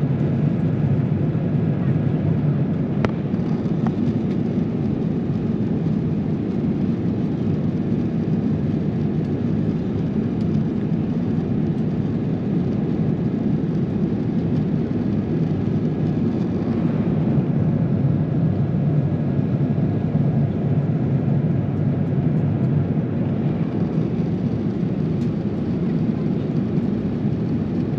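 Steady low rumble of an Airbus A350-900's cabin noise, from its Rolls-Royce Trent XWB engines, heard from inside the cabin. A brief click comes about three seconds in.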